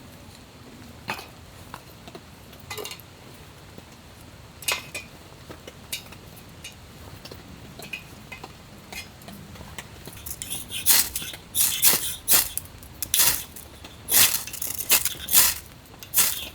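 Metal items clinking and knocking: a few scattered light clicks, then a run of about nine loud, sharp metallic strikes, roughly one every half second to second, in the last six seconds.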